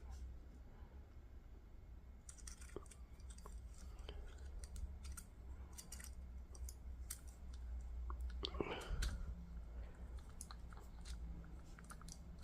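Faint scattered clicks and light rattling of small parts while a lightsaber hilt is being taken apart, with a brief rustle about two-thirds of the way through.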